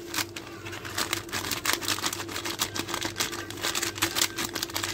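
Plastic inner pouch of a tandoori masala box crinkling as the spice powder is shaken out of it: a quick, irregular run of small clicks and rustles.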